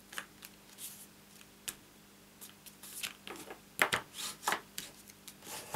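Cardstock being folded by hand along its score lines, with short crisp paper rustles and scrapes, and a bone folder rubbed along the crease. The loudest strokes come about four seconds in.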